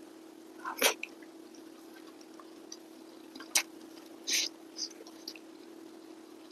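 Sounds of eating by hand: a handful of short, wet mouth smacks and clicks, the sharpest just before a second in and at about three and a half seconds, over a faint steady hum.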